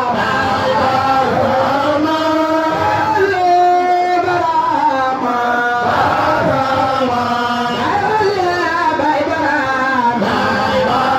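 Islamic devotional chanting: a sung voice holding long notes and sliding between pitches, with no break.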